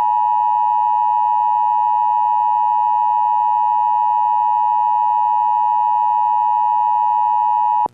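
Emergency Alert System attention tone: a single steady, loud, high-pitched alarm tone held for about eight seconds, cutting off abruptly near the end. It signals that an emergency alert message is about to be read.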